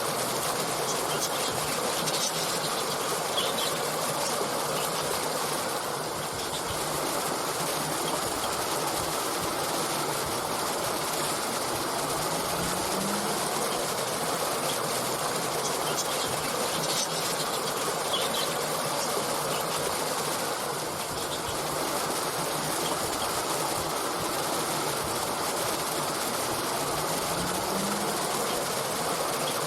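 Stream of water flowing steadily, with a few faint, short bird chirps now and then.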